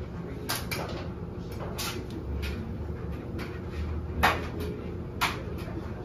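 LG front-load washing machine tumbling a load of laundry in its wash cycle: a steady low hum with irregular knocks as the drum turns, the loudest about four seconds in.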